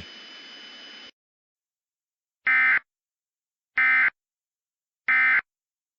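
Three short Emergency Alert System end-of-message data bursts (the SAME 'NNNN' code), each a fraction of a second of buzzy digital tone, about 1.3 seconds apart, signalling that the alert has ended. A faint hiss before them cuts off about a second in.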